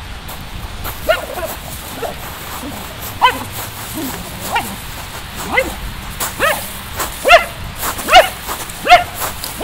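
Wire fox terrier giving short, high-pitched yips during play with a ball, few at first and then coming faster, about two a second, toward the end.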